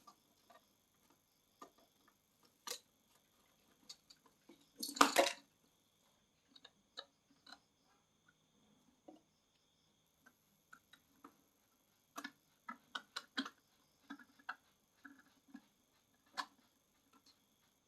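Hands handling an action camera and its plastic helmet mount: scattered small clicks and taps, with one louder clatter about five seconds in and a quick run of clicks near the end.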